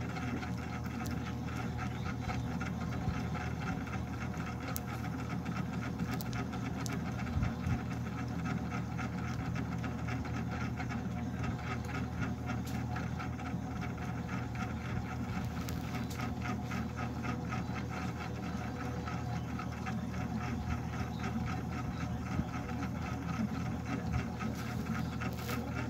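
A steady low mechanical hum with a fine rattling texture running through it.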